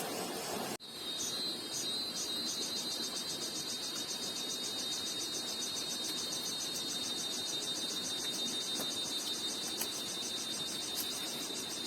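Insect chirping in a steady, high, rapidly pulsing trill over a light outdoor background hiss. It starts abruptly just under a second in.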